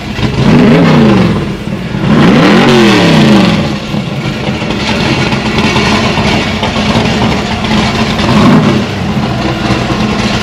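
Factory Five Cobra replica's small-block Ford V8, just started, idling and revved: two throttle blips in the first few seconds, the second the biggest, and a lighter blip near the end.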